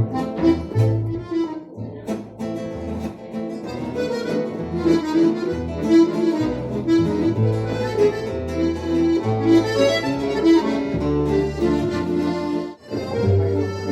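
A small jazz band playing live: a bass line moving note by note under chords and melody, with a few sharp percussive clicks in the first couple of seconds.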